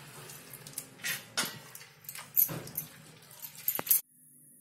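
Washed amaranth leaves squeezed out by hand over a steel plate: wet squelches and splashes of wrung-out water, with bangles clinking now and then. The sounds cut off suddenly about four seconds in.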